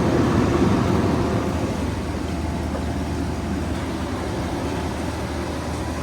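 Steady running-machinery noise: a low hum under an even rush of air, a little louder in the first second or so.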